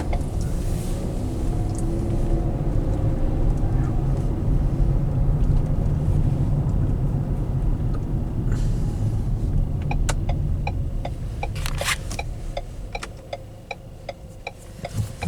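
Road and engine rumble inside the cabin of a 2015 Ford Edge being driven. The rumble eases near the end, and from about two-thirds of the way in a light, regular ticking joins it.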